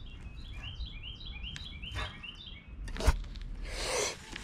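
A songbird singing a fast run of short, repeated down-slurred chirps that stops a little over two seconds in. About three seconds in comes a single sharp click from handling the baitcasting reel, then a brief rush of noise near the end.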